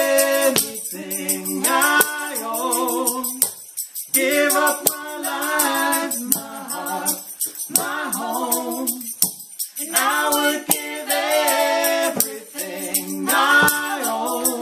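Several voices singing a slow melody in close harmony, in phrases of a few seconds with short breaks between them, over a hand tambourine shaken to a steady beat.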